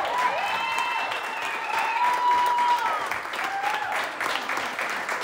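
Audience applauding, with voices calling out over the clapping in wavering, rising and falling cries. The sound cuts off abruptly at the very end.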